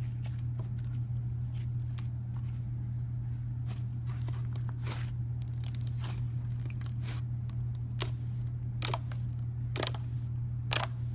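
Slime being squished and stretched by hand, making scattered small clicking and popping sounds, with a few sharper pops in the last few seconds, over a steady low hum.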